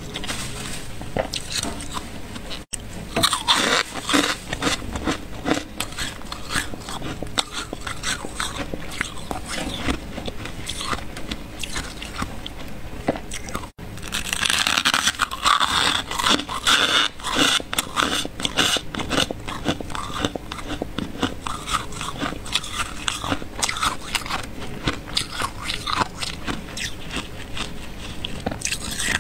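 Freezer frost crunching and squeaking in a dense, continuous run of crackles, louder from about three to five seconds in and again from about fourteen to eighteen seconds.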